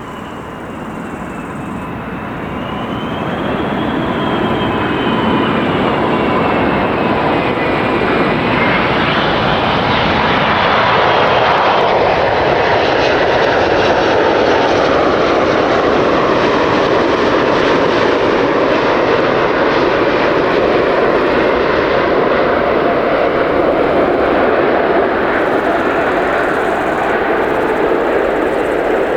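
Emirates Airbus A380-800 landing, its four jet engines passing close by. The roar swells over the first few seconds and then holds steady and loud, while a high engine whine wavers and then slides downward in pitch as the aircraft goes past.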